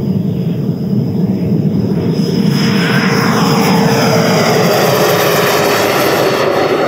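JETFAN-120 PRO electric ducted fan, driven by a HET Typhoon brushless motor, pushing a model jet through its takeoff run and climb-out. A steady high whine sits over a rushing roar that grows louder from about two seconds in as the jet lifts off and passes, its pitch sagging slightly as it goes by.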